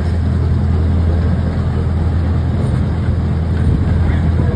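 A tour train's engine running steadily as the train rolls along, heard from aboard as an even low hum.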